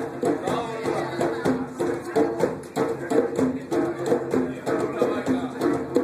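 African percussion ensemble playing a fast, steady rhythm on pitched drums, with dense repeating strokes.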